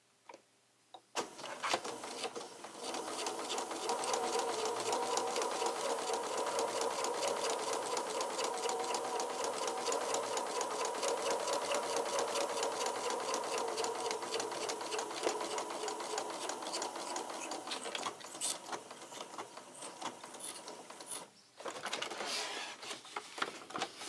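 Pfaff electric sewing machine stitching a paper panel onto card. It starts about a second in with a fast, steady run of needle strokes over the motor's whine, then goes stop-start near the end with one short pause.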